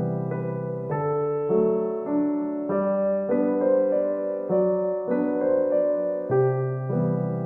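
Background piano music, soft and slow, with notes changing about every half second over a low bass line.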